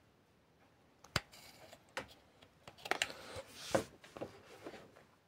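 A few light, sparse clicks and a brief soft rustle: a rotary hammer's metal depth-stop rod and plastic housing being handled and adjusted.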